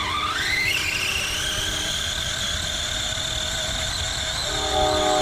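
Brushed electric motor and gear drive of a Redcat Volcano EPX RC monster truck whining up in pitch as it accelerates at full throttle on a speed run, then holding a steady high whine at speed.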